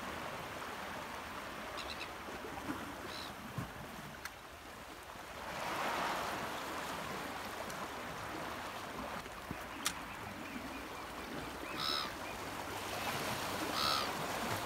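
Sea washing over shoreline rocks as a steady hiss, swelling about six seconds in, with a few short bird calls, the clearest two near the end.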